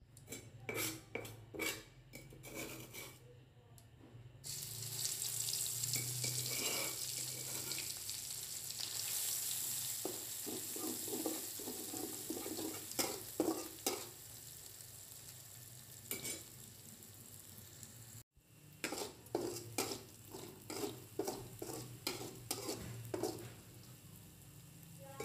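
Ground shallot, garlic and chili paste frying in hot oil in an aluminium wok: a few clacks at first, then a sudden loud sizzle about four seconds in as the paste hits the oil. A spatula then scrapes and stirs it round the pan in repeated strokes while it keeps sizzling.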